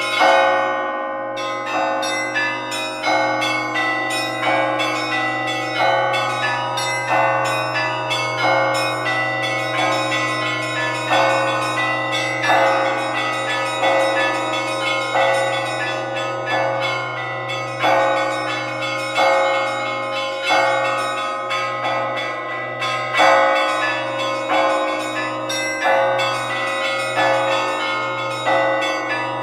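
Church bells ringing in a continuous peal, several bells struck one after another about every half second, their tones overlapping as each rings on.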